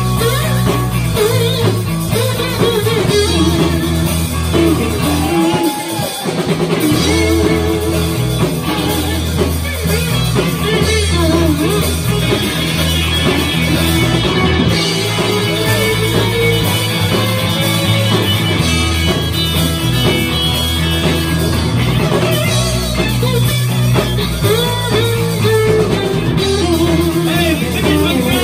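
Live rock-and-roll band playing: electric guitars and drum kit over a steady bass line, with a man singing lead.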